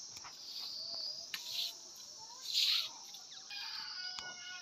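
Crickets or cicadas buzzing steadily with birds chirping, and two brushy swishes of a straw broom sweeping about a second and a half and two and a half seconds in, the second the loudest.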